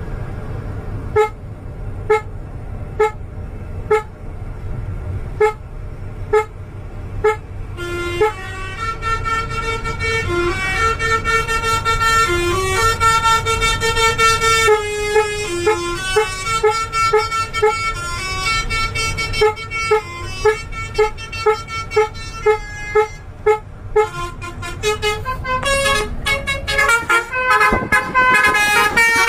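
Indonesian tour-bus 'telolet' musical horns: short pitched toots about once a second, then from about 8 s in a tune of changing notes, then quicker repeated toots near the end. A steady low engine rumble runs underneath.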